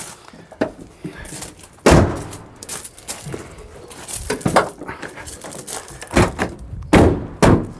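A van's rear barn doors being slammed shut one after the other. The first door shuts with a heavy thud about two seconds in, and the second shuts near the end with a few more thuds.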